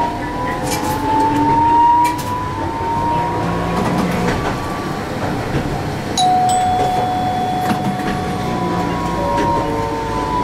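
Toyohashi Railway T1000 low-floor tram running on street track, heard from the cab: its inverter traction motors whine, rising in pitch as it picks up speed, then falling again near the end as it slows, over rail and road noise. A steady tone holds for about three seconds just past the middle.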